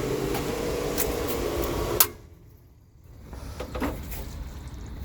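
Pool pump motor humming steadily, switched off with a sharp click about two seconds in and going quiet, then starting to build up again about a second later. It is being cycled off and on to try to regain suction lost to an air leak in the suction plumbing.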